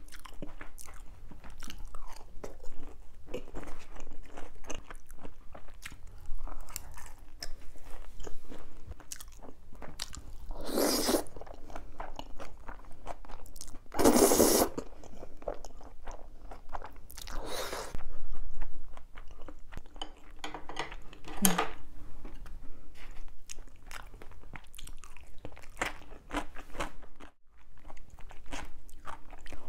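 Close-miked eating: crunching and chewing of crispy glutinous-rice battered sweet-and-sour pork, with four loud slurps of black-bean-sauce noodles around the middle. The loudest slurp comes about fourteen seconds in.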